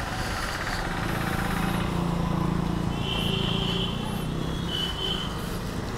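Motorcycle engine running steadily. A thin high tone sounds over it from about three seconds in until about five seconds in.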